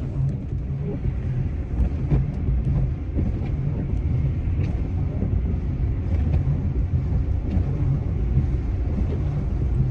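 Steady road and tyre rumble heard from inside the cabin of a moving Tesla Model X on a wet, slushy highway, with a few faint ticks.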